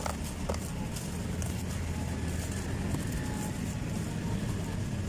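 Dry sand-cement or dirt chunks crumbling, heard as faint scattered crackles over a steady low rumble.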